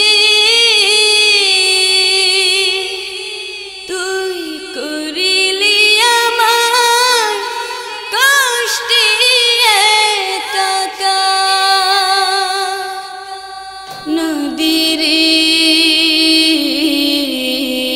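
A Bengali song played as background music: the singer draws out long, wavering notes in drawn-out phrases, with short breaks between phrases about four and fourteen seconds in.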